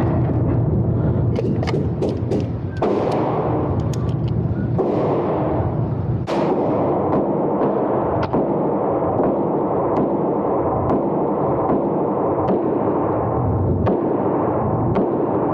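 Gunshots at a shooting range, cracking at irregular intervals about once or twice a second, heard faintly over a steady loud rushing noise.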